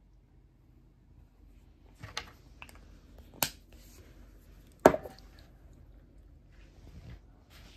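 A few sharp plastic clicks and knocks as a Saie highlighter tube and its cap are handled and the tube is set down on a wooden tabletop. The loudest knock comes about five seconds in, followed by softer taps and rustling.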